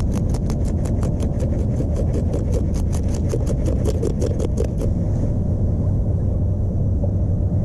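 A fillet knife cutting a whole baitfish into bait chunks, making a fast run of crisp clicks, about eight a second, that stops about five seconds in. A steady low rumble of wind on the microphone runs under it.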